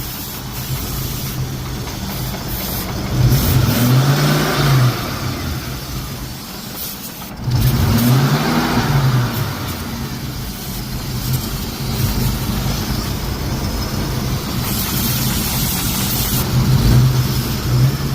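Car engine idling steadily, with the throttle blipped twice, about three seconds in and about eight seconds in; each time the revs rise and fall back to idle.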